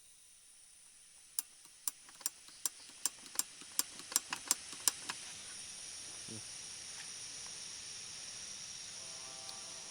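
About a dozen sharp clicks in quick succession, coming faster toward the end, over a steady hiss that slowly grows louder.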